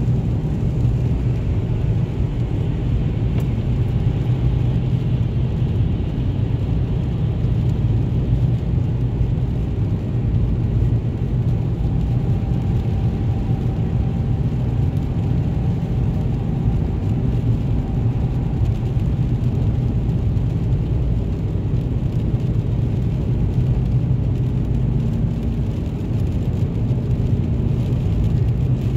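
Steady cabin drone of a vehicle cruising at highway speed: a low engine hum under the rumble of tyres on wet, slushy pavement.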